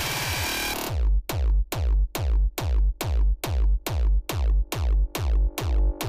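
Hard electronic dance music from a DJ set: a dense, noisy build-up cuts off about a second in and drops into a heavy kick drum with deep bass, about two and a half beats a second.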